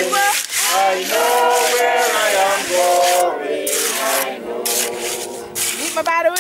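Steel trowel scraping and smoothing a damp sand-and-cement mix over a grave slab, a rough rasp in repeated strokes, with voices going on over it.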